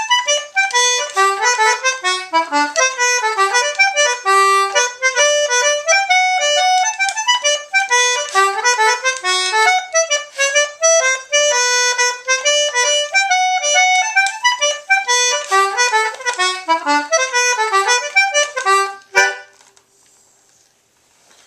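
Concertina playing a hornpipe, a quick melody of short notes over chords. The tune ends near the end with a sharp click and a briefly fading last note.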